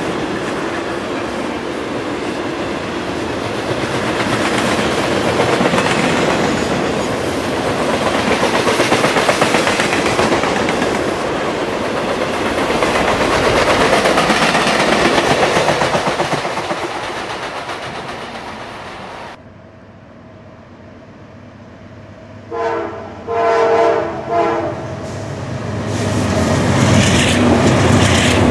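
Norfolk Southern freight train of rail rack cars and boxcars passing close by with a steady, loud rolling rumble. It cuts off abruptly to a quieter stretch, where a diesel locomotive horn sounds a few short blasts, and then the low rumble of an intermodal freight train builds up near the end.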